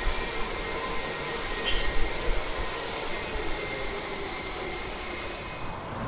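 Washington Metro subway train braking to a stop alongside an underground station platform, the steady rumble of the cars with wheel squeal. Two short high hisses come about one second and three seconds in.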